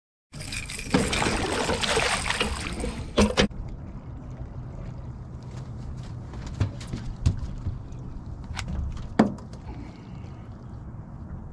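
Sounds aboard a fishing boat while fish are fought on rods: a loud rushing, splashy noise for about three seconds, then a quieter steady low background with scattered clicks and knocks.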